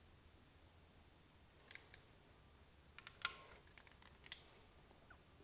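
A few faint, sharp clicks and snaps of a hand crimping tool and small metal bullet connector being worked onto a wire, the loudest a little past the middle.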